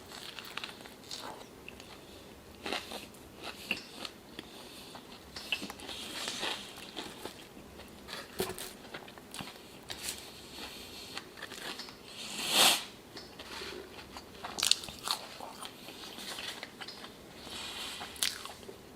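Close-miked biting and chewing of a spicy chicken sandwich with bacon: irregular crunches and mouth clicks, with one loud crunch about two-thirds of the way through.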